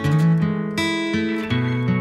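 Background music: acoustic guitar strumming chords at a steady, unhurried pace.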